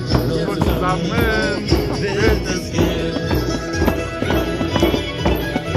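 Music with a steady beat, about two beats a second, under a gliding melody line.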